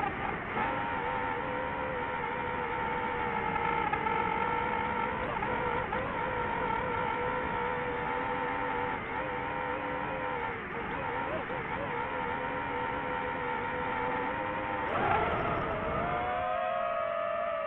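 DJI FPV drone's motors and propellers whining steadily in flight. About fifteen seconds in the pitch wavers and drops, settling into a lower steady whine as the drone comes to a hover.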